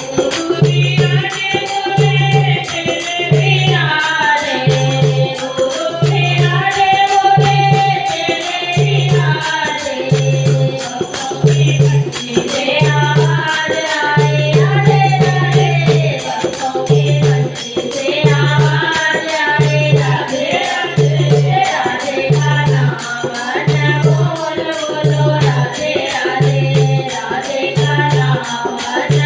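Hindi devotional bhajan: voices singing a bending melody over a steady low drum beat, about one beat a second.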